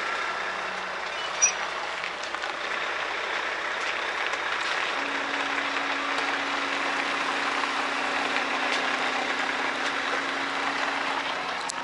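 Volvo truck running as it reverses slowly with its trailer. A single sharp click sounds about a second and a half in, and a steady low hum joins about five seconds in.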